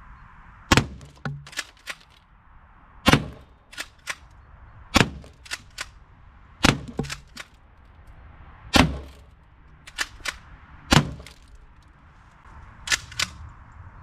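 Umarex HDX68 CO2 pump-action shotgun firing about seven shots, roughly one every two seconds, each sharp crack followed by a couple of lighter clicks or knocks.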